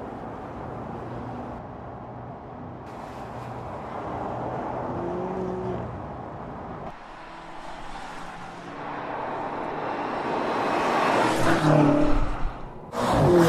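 BMW M5 Competition's twin-turbo V8 accelerating hard, the engine and road noise building over several seconds with the pitch rising. Near the end the sound drops out abruptly and comes straight back loud.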